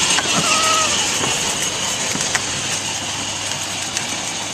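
A young child's brief high-pitched squeal in the first second, over steady background noise with a low hum.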